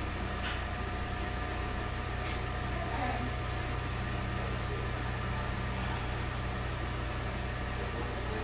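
Steady low mechanical hum of room background noise, with a few faint thin whining tones above it.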